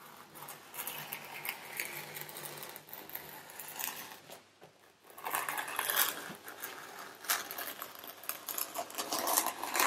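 Scraping and rasping handwork on a foam wing bed, made up of many small strokes, with louder stretches about five seconds in and near the end.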